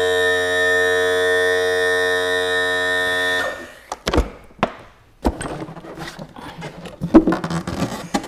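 A steady held chord of background music that cuts off about three and a half seconds in, followed by sharp clicks and knocks as the latch of a Mercury outboard's plastic engine cowl is worked open and the cowl is lifted off, the loudest knock near the end.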